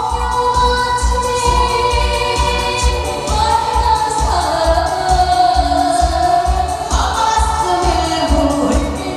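Woman singing a Korean song through a PA, holding long notes that bend and slide in pitch, over a backing track with a steady low beat.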